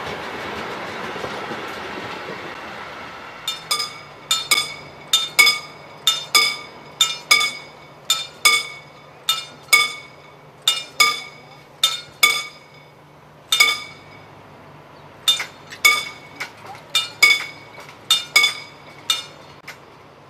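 Passenger coaches rolling past on the rails and fading away, then a level-crossing warning bell ringing with sharp metallic strokes, about two a second at uneven spacing, while the crossing barrier arm moves, over a faint steady low hum.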